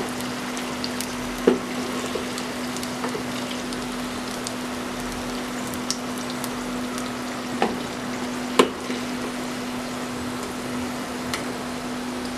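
Battered green-chilli fritters (mirchi bajji) frying in hot oil in a small pan: a steady sizzle, with a few sharp taps of a metal slotted spoon against the pan as the fritters are lifted out. A steady low hum runs underneath.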